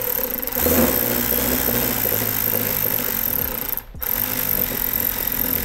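Milwaukee cordless electric ratchet running, winding the handbrake adjuster mechanism into the piston of a Mazda MX-5 rear brake caliper. It stops briefly about four seconds in, then runs again.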